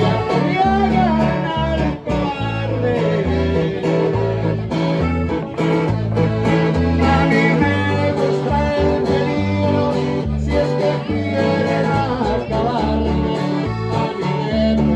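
Live Mexican norteño-style music from strolling musicians: a button accordion playing over a plucked string accompaniment with a stepping bass line, with men singing.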